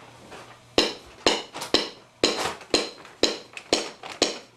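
Drumsticks clicked together in a steady rhythm, about two sharp clicks a second with an occasional quick double click.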